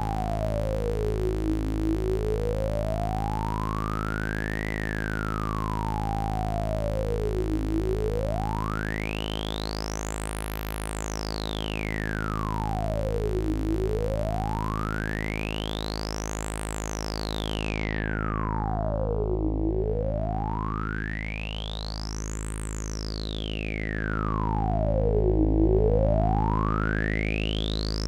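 AnalogFX SER-2020 analog synthesizer holding a steady low drone while a sharp, whistling resonance sweeps smoothly up and down through it in an even cycle about every six seconds. After the first cycle the sweeps climb much higher.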